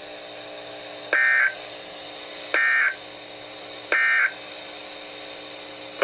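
Emergency Alert System end-of-message signal on NOAA Weather Radio: three short bursts of shrill digital data tones, each under half a second and about a second and a half apart, each starting with a click, heard through a radio speaker over a steady low hum. These bursts mark the end of the tornado warning broadcast.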